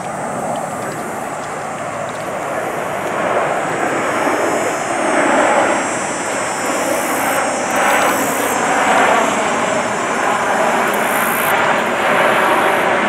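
Formation of Canadair CT-114 Tutor jets, each with a single turbojet, passing overhead: a steady jet rumble that grows louder over the first five seconds or so and then holds.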